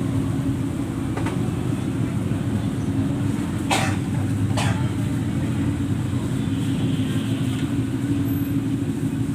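A steady low mechanical drone with a held hum, like a motor running, and two sharp clicks a second apart about four seconds in.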